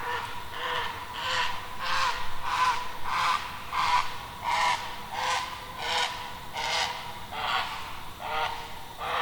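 An unidentified animal calling over and over in a regular rhythm, about one and a half short, rasping calls a second, with a faint steady tone underneath. It is an eerie night sound that the recordists themselves cannot identify.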